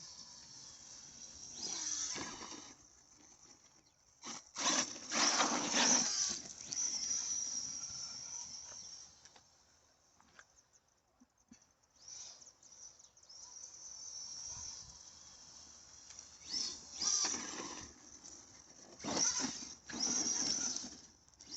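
Arrma Big Rock RC monster truck running on a 4S battery, driven in short bursts: its motor and tyres come and go about five times. A steady high hiss runs underneath.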